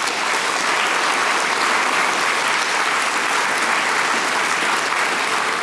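Audience applauding steadily, a dense sustained clapping from a seated crowd.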